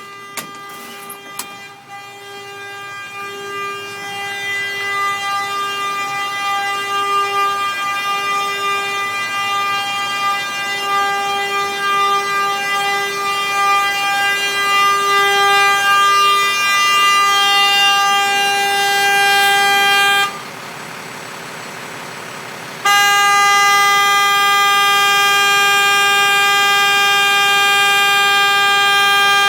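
A sanitation truck's horn held down in one long continuous blast that grows louder and lasts about 18 seconds. It cuts off suddenly, and after a pause of about two and a half seconds it starts again in a second long, steady blast.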